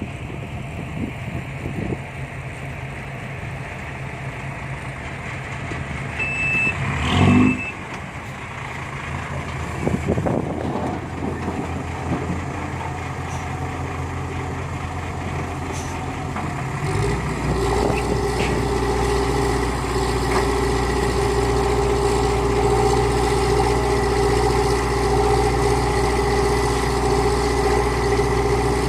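Heavy diesel engines of a dump truck and excavator running, the truck reversing into loading position. About seven seconds in there is a short high beep and a loud burst of hiss; about seventeen seconds in an engine speeds up and holds a steady higher pitch.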